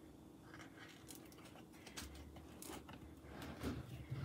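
Faint handling sounds: the foil liner of a fake cupcake rustling and light taps and scrapes as the cupcake is pushed into a tight spot in the foam-filled pot, over a faint steady hum.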